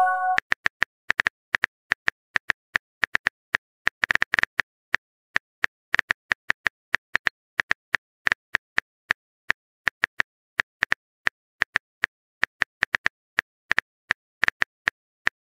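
Phone keyboard typing sound effect: a run of short, sharp clicks at uneven spacing, several a second.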